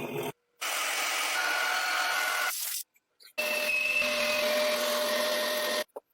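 A power tool running steadily in two stretches of a few seconds each, each cutting off abruptly.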